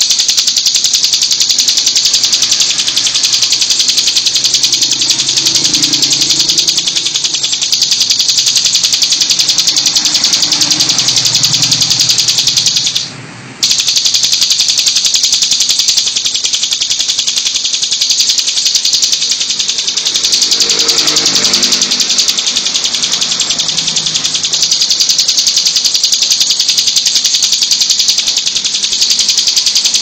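Bar-winged prinia (ciblek) singing a rapid, high-pitched buzzing trill that runs on almost without a break, stopping briefly about 13 seconds in.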